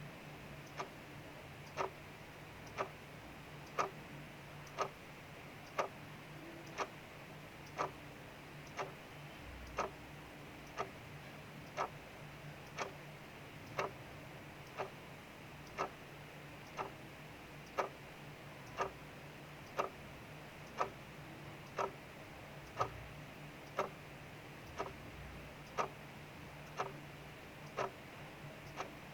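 Mechanical clock ticking steadily, about one tick a second, over a soft steady hiss of rain falling outside.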